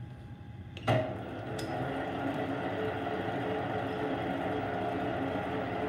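Small bench metal lathe switched on with a click about a second in, then its motor and spindle run with a steady hum.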